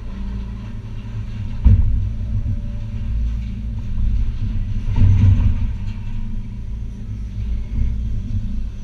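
Hitachi ZX280 excavator's diesel engine and hydraulics running steadily, heard from inside the cab as the machine swings. A sharp knock comes about two seconds in, and a heavier thump with clatter around five seconds in.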